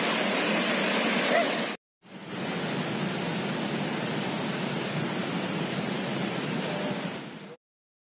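Waterfall cascading over rocks into a plunge pool: a steady rush of white water. It cuts off abruptly just under two seconds in, resumes a moment later somewhat quieter for about five and a half seconds, then cuts off again near the end.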